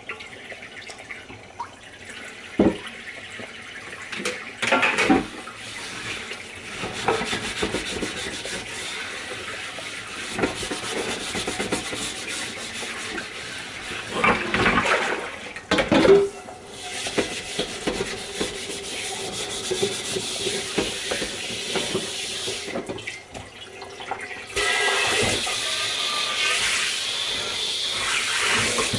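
Kitchen faucet running into the sink while dishes are washed by hand, with scattered knocks and clatter from the dishes. About three-quarters of the way through, the water gets louder and steadier as the pull-down spray head is pulled out and sprayed into the sink.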